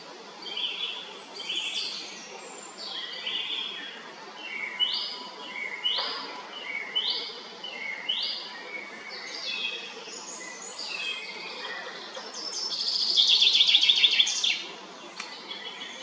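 Several songbirds calling and singing: a run of short, similar notes repeated about once a second, then a louder rapid trill about three quarters of the way through.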